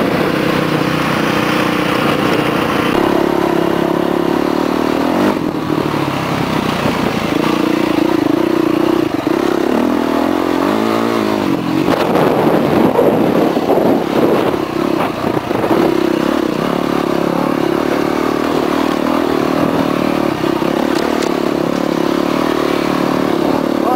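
Yamaha 450F dirt bike's single-cylinder four-stroke engine running under way, its note falling and rising around the middle as the throttle changes, over a steady rush of riding noise.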